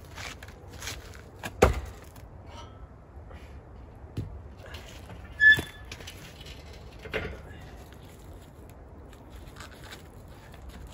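Firewood being handled to build a campfire: a few separate knocks and clunks over faint rustling, the loudest about halfway through with a short metallic ring.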